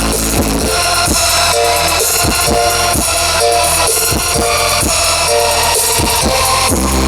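Music with a drum kit, heavy bass and guitar played loudly through a large PA sound system during a sound check. The drum hits are steady, with a sustained deep bass that swells up again near the end.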